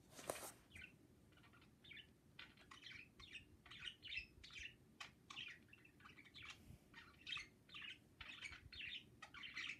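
Pet budgerigars chirping and chattering softly, a quick run of short, faint chirps that goes on without a break. There is a brief rustle right at the start.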